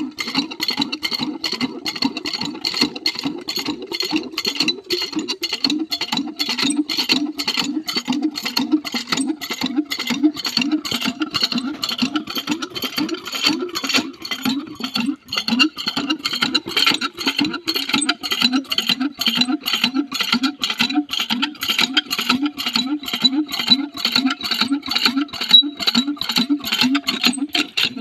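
Water glugging out of a plastic jerry can as it is poured into a diesel water pump to prime it. The glugs come steadily, about two or three a second.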